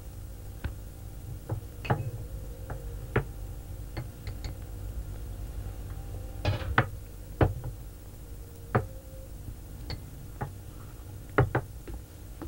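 Irregular clinks and knocks of drinking cups and dishes set down on wooden tables, a dozen or so scattered through, over a steady low hum.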